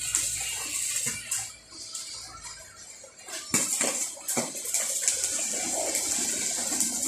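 Electric arc welding: the arc's crackling hiss, which drops away for a moment around two seconds in and strikes up again sharply about three and a half seconds in.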